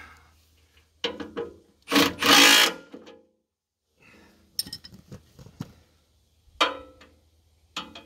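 Milwaukee Fuel cordless driver run in one burst of about a second, tightening the bolts on the backhoe's joystick control box cover. Around it are scattered clicks and tool-handling clatter, with one sharp knock near the end.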